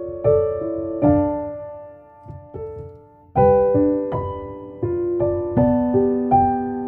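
Gentle background piano music: single notes and chords that strike and ring away, with a quieter dip before fuller chords come in about halfway through.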